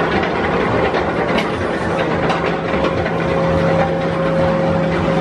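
Vekoma suspended looping coaster's chain lift hauling a loaded train up the lift hill: a steady mechanical hum with light clicks, and a higher whine that grows stronger about halfway through.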